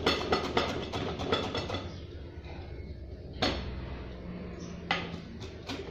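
Lime being zested on a plastic hand grater: quick scraping strokes, about four a second, for the first two seconds. Then two single knocks, about a second and a half apart, near the end.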